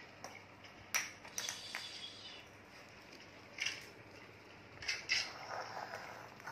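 Hard plastic toy dinosaurs clacking and tapping against one another and the play mat: a few separate sharp knocks, spread out with gaps between them.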